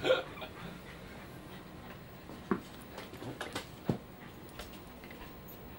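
Short knocks and thumps from a wire fox terrier's game with a tennis ball: one sharp knock at the start, then a handful of scattered soft taps and thuds a few seconds in.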